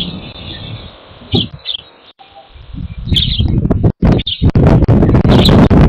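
Small birds chirping in short, separate calls, over wind buffeting the microphone that becomes a loud rumble from about halfway through.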